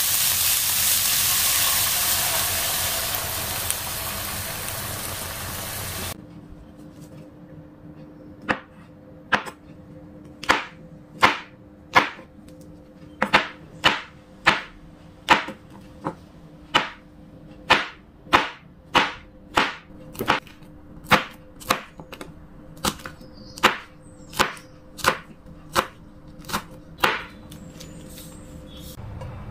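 Sliced mushrooms and green olives sizzling in a frying pan for about six seconds, then stopping abruptly. After that, a knife chops button mushrooms on a cutting board: a sharp knock for each cut, a little over one a second.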